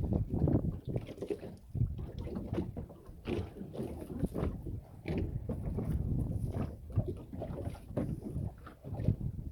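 Water slapping and splashing irregularly against a small boat's hull as it rocks on the sea, with wind buffeting the microphone.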